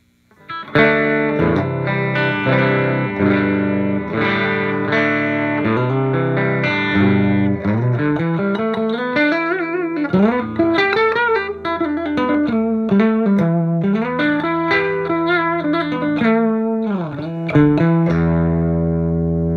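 Les Paul electric guitar on its Pearly Gates bridge pickup, guitar volume backed off, played through a hand-wired Marshall JTM45 Plexi clone valve head at low gain. Strummed chords first, then a single-note lead line with string bends, ending on a held chord left ringing near the end.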